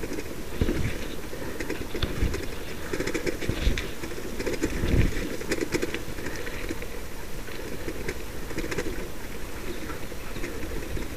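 A dog-sled racing rig rolling fast over a rough dirt trail behind a husky team: a steady rattling rumble with frequent small clatters and a few harder jolts in the first five seconds.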